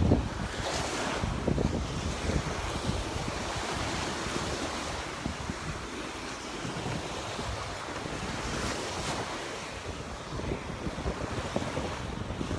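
Gulf surf washing onto the beach, swelling about a second in and again near nine seconds, with wind buffeting the microphone.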